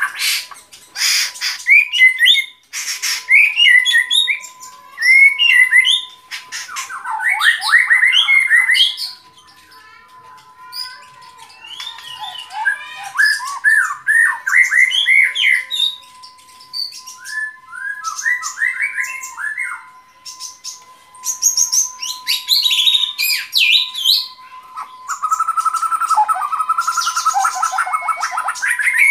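White-rumped shama singing: a run of varied whistled, warbling and chattering phrases in bursts separated by short pauses, with a few sharp clicks near the start. A faint steady high tone runs underneath.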